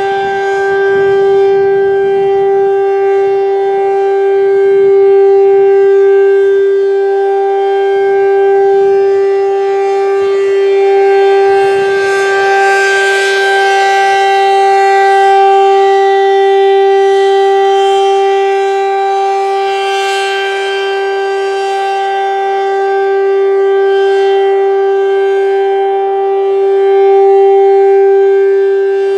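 ACA P-15 outdoor warning siren sounding a steady tone at full speed during a three-minute test. Its loudness swells and fades every several seconds.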